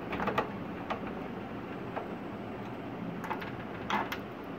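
A screwdriver clicking against screws and the plastic and metal frame of a Canon imageRUNNER 2420 photocopier as screws are tightened: a few scattered clicks, a quick cluster at the start and the loudest near the end.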